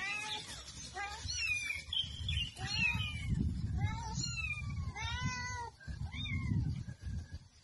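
Kitten mewing over and over, high-pitched calls that rise and fall, about one a second, over a low background rumble.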